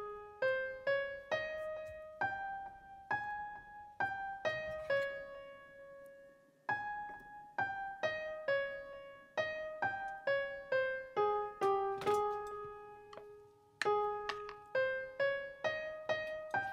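Background music: a slow keyboard melody of single struck notes, each ringing and fading, dying away twice before starting again.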